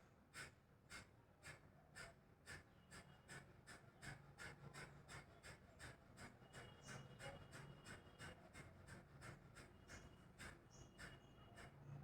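Kapalbhati breathing: a faint series of short, forceful exhalations through the nose. The breaths start slowly, quicken to about three a second, then ease off near the end.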